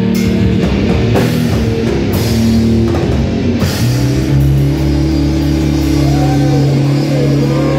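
Live heavy metal band playing loud with drums, cymbals and guitars; about four seconds in the drumming drops away and a held guitar chord rings on.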